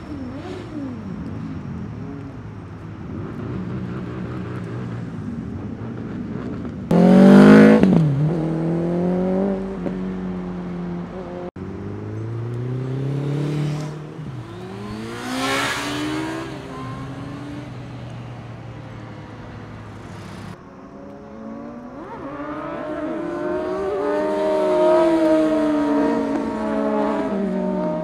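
Sport motorcycle engines revving and accelerating in several clips cut together. There is a sudden loud surge about seven seconds in that drops in pitch as it passes, another rise and fall in the middle, and a longer run of revving near the end.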